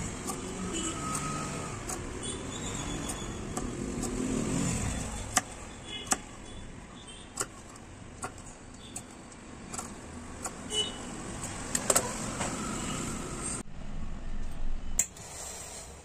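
Large tailor's shears snipping cloth: a string of sharp clicks, roughly one every second, after a low rumble that fills the first five seconds.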